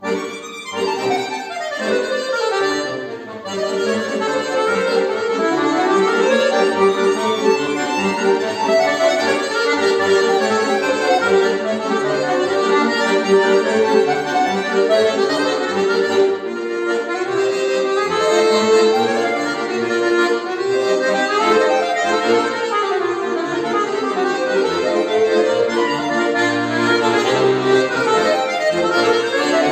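Chromatic button accordion (bayan) playing a lively solo piece full of quick running passages. It starts suddenly out of silence right at the beginning.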